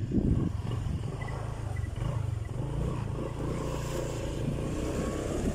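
Honda Click 150i scooter's single-cylinder engine running steadily while riding, heard from on the bike.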